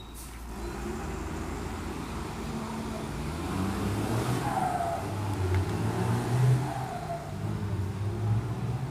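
Road traffic: motor vehicles' engines running and passing, growing steadily louder through the first half and loudest about six and a half seconds in.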